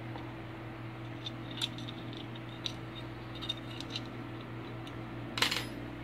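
Stainless steel multi-tool being handled: scattered metallic clicks and clinks as its folding tools and pliers are moved, with a louder cluster of clicks near the end. A steady low hum runs underneath.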